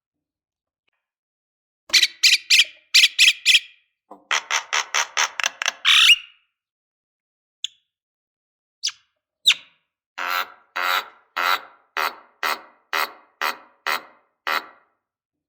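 Lovebird calling in short, sharp, harsh notes given in runs: about six notes starting two seconds in, a faster run of about ten, a few single chirps, then a steady run of about nine notes at roughly two a second. There is dead silence between the runs.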